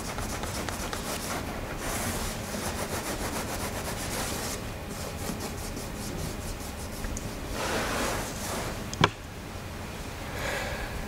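Rag scrubbing paint off rubber door weather stripping, a steady scratchy rubbing in quick strokes, heaviest over the first few seconds, with a single sharp click about nine seconds in.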